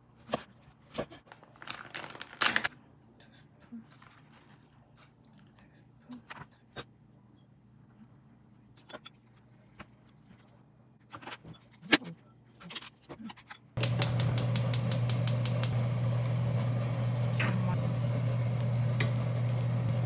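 A kitchen knife cutting through eggplant onto a wooden cutting board, then light taps and scrapes of chopsticks whisking batter in a ceramic bowl. About 14 seconds in, a steady low hum starts abruptly, with a quick run of even ticks at its start.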